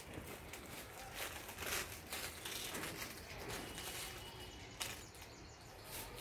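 Faint outdoor ambience with a few soft crunches of footsteps on dry leaf litter.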